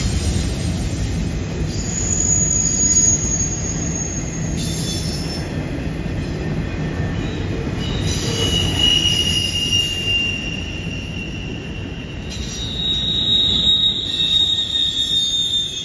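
Double-stack intermodal well cars of a freight train rolling past with a steady rumble. High-pitched wheel squeal comes and goes over it, several separate squeals at different pitches: flange squeal as the wheels take the curve.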